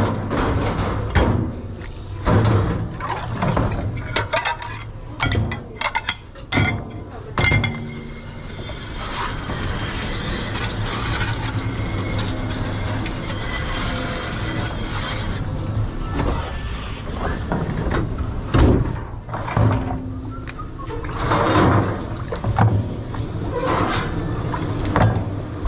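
Dishes and utensils clattering and knocking, then water spraying steadily for about eight seconds, then more clatter. A steady low hum runs underneath.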